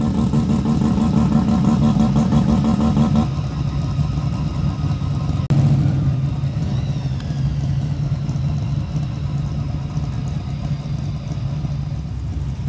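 Car engines running as cars roll in to a car meet: a loud, steady engine note for about three seconds that then drops away, leaving a quieter engine running on.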